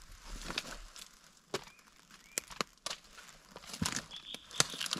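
Scattered cracks and crunches of twigs and wet forest litter underfoot as someone shifts around in boggy mud, with a few faint bird chirps.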